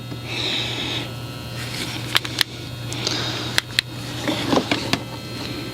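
Scattered sharp clicks and light rustling of handling, over a steady low hum.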